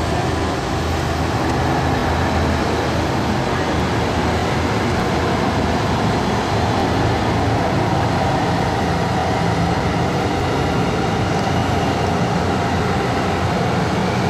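Boeing 737-300's CFM56-3 jet engines at low taxi power, a steady even rumble and hiss as the airliner taxis past.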